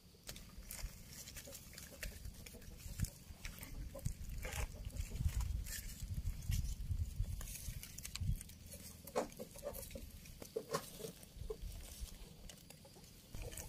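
Rustling, crackling and scraping of dry leaves, soil and a seedling's root wrapping as they are handled by hand, with dull bumps now and then.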